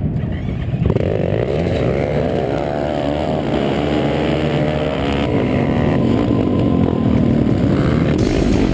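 A pack of race quads (ATVs) launching off the start line: many engines revving and accelerating at once, getting louder about a second in, with pitches rising and wavering as the riders work the throttle and shift.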